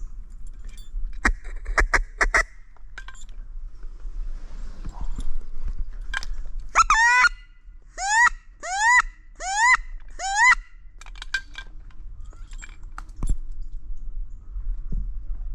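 Wood duck squeals: five loud calls in a row, each sliding up in pitch, spaced under a second apart, starting about seven seconds in. A few sharp clicks come earlier, about one to two seconds in.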